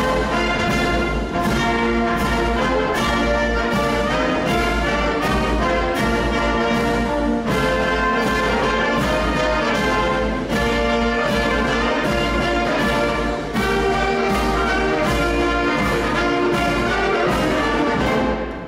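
Live brass band playing a slow ceremonial march, with held brass chords over a steady drum beat of about one and a half beats a second. It ends shortly before the close.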